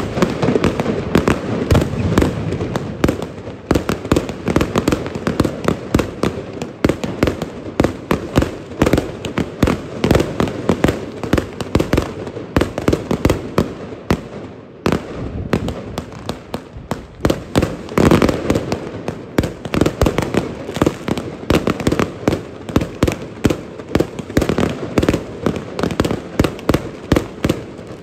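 Massed fireworks going off at once: dense, overlapping bangs and crackles, several a second, with a brief lull about halfway through.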